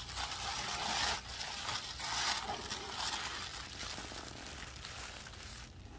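Tissue paper rustling and crinkling as hands pull it apart inside a cardboard box, busiest in the first two to three seconds and softer after.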